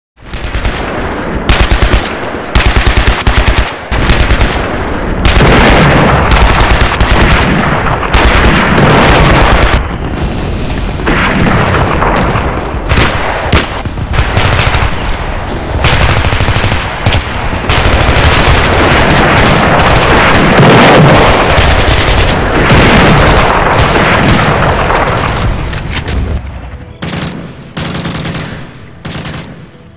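Battle sound effects: rapid machine-gun fire in bursts over a continuous din of blasts, loud throughout and fading down over the last few seconds.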